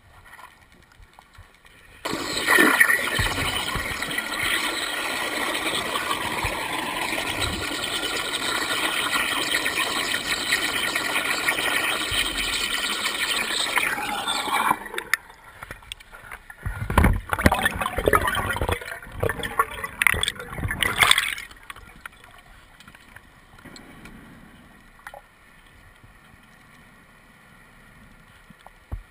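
A scuba diver's breathing heard underwater. A steady rush of air and bubbles starts about two seconds in and cuts off suddenly about halfway through. Several shorter loud bubbling bursts follow.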